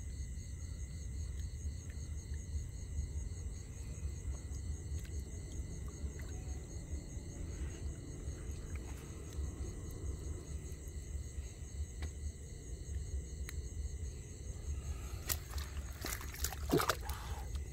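Steady chorus of night insects, several high-pitched pulsing trills, over a low rumble. Near the end a brief splash and rustle of water and handling as a fish is put into a mesh bag.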